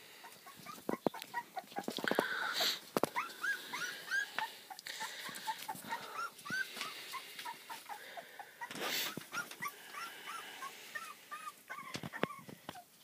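Three-week-old Pembroke Welsh Corgi puppies squeaking and whimpering as they play: many short, high squeaks in quick succession, with a few short noisy bursts about two and a half and nine seconds in.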